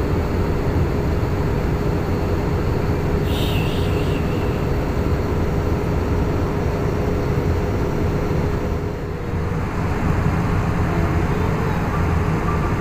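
Steady cabin noise of an Airbus A320neo in descent: the drone of the engines and the airflow past the fuselage, with a faint steady hum. A brief high hiss about three and a half seconds in.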